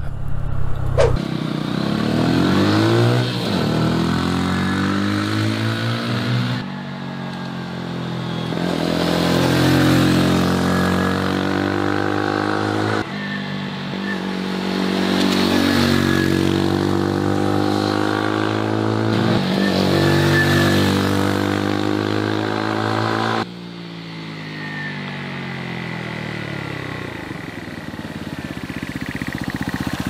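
Motron Revolver 125 motorcycle's 125 cc engine running under load, its pitch rising repeatedly as it accelerates through the gears, with the bike going by at times. The sound breaks off abruptly several times.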